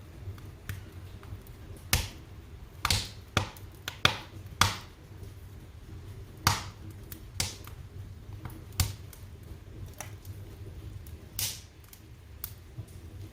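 Wood fire crackling in a fireplace: irregular sharp pops and snaps, about a dozen, over a low steady rumble of the flames.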